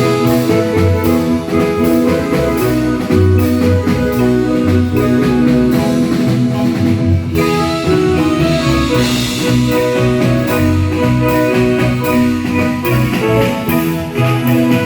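A marimba band playing a tune, with a moving bass line and regular drum and cymbal strokes.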